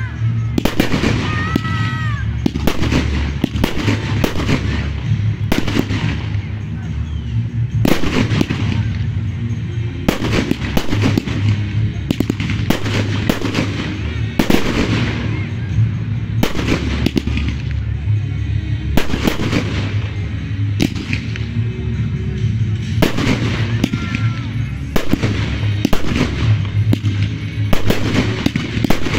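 Aerial fireworks display: shells fired from mortar tubes and bursting overhead in irregular sharp bangs, roughly one or two a second. Music plays underneath.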